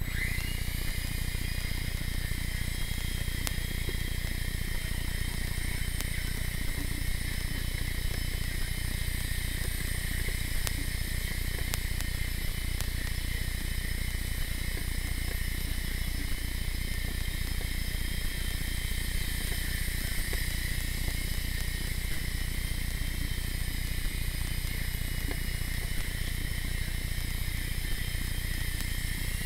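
Blade mCX Tandem Rescue micro RC helicopter's electric motors and twin rotors whining steadily in flight, the pitch climbing sharply right at the start as they spool up.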